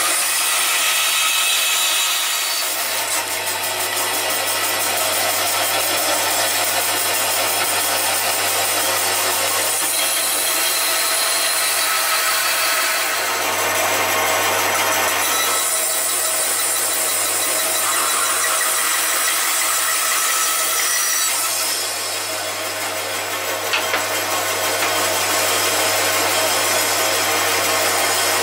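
Band saw running with its blade cutting through timber, the cheeks and shoulders of a bridle-joint tenon: a steady motor hum under the hiss of the cut, which swells and eases several times as cuts start and finish.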